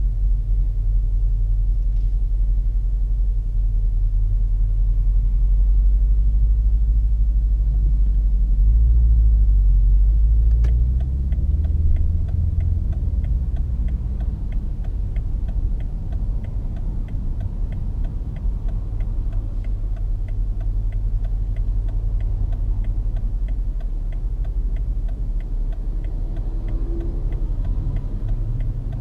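BMW F90 M5's twin-turbo 4.4-litre V8 running at low speed through a Capristo valved exhaust with the valve open, heard from the cabin as a deep, steady drone that is heavier for a few seconds and eases off about eleven seconds in. From then on the turn signal ticks evenly.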